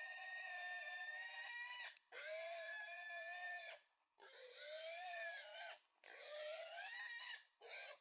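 Wild boar squealing: a string of long, high, drawn-out squeals, about five in all, each lasting one to three seconds with short breaks between them and the last one brief.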